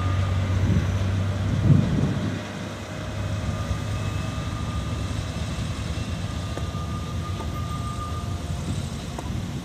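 A rake of covered sliding-wall freight wagons rolling slowly on the rails while a road-rail Unimog shunts them. A steady low rumble carries faint thin squeals. There is a louder thump just under two seconds in, after which a low hum drops away.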